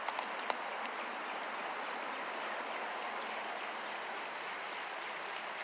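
Creek water running with a steady rushing hiss. A few light clicks come in the first half second.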